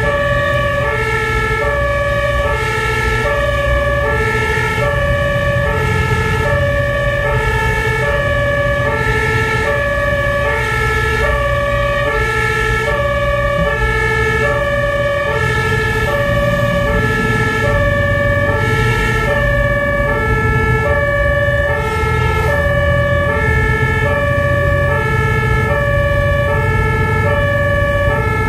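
A fire engine's two-tone German siren (Martinshorn) is sounding, its two pitches alternating evenly about every 0.7 seconds. Underneath are a steady high tone and the truck's engine and tyre rumble on the wet road, heard from inside the cab.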